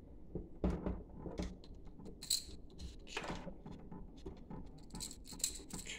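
Irregular small clicks and rattles of a screwdriver and wire ends being worked at a screw terminal block, as ground wires are fastened under a terminal screw.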